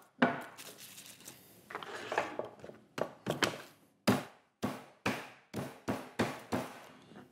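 Garlic cloves being crushed with a large kitchen knife on a plastic cutting board: after a few seconds of softer handling noise, a run of sharp knocks at about three a second as the blade comes down on the cloves.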